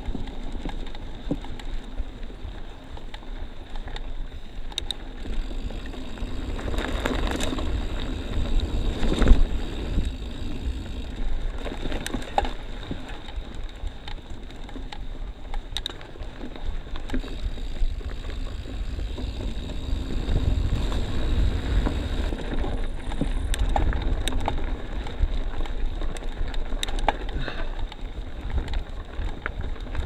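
Mountain bike rolling down a dirt trail: steady tyre rumble with scattered rattles and knocks from the bike over rough ground, and wind buffeting the microphone.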